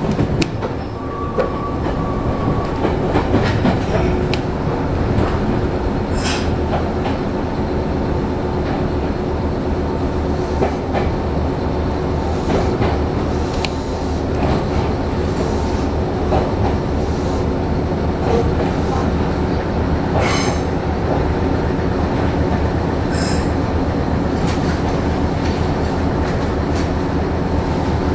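Meitetsu electric train running along the track, heard from inside the front of the car: steady rolling noise with wheels clicking over rail joints and points, and a few brief high wheel squeals.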